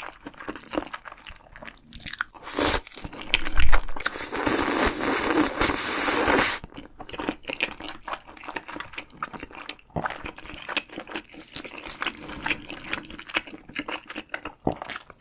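Close-miked eating sounds: a person slurping ramen noodles from tteokbokki and chewing, with a loud breathy rush lasting about two seconds a third of the way in, then quieter wet chewing clicks.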